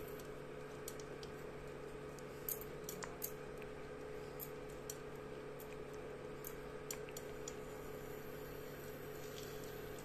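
Hot frying oil in a kadhai crackling faintly, with scattered sharp pops at irregular intervals, over the steady hum of an induction cooktop.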